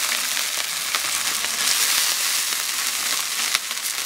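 Dung beetles frying in a wok: a steady sizzle with scattered sharp crackles.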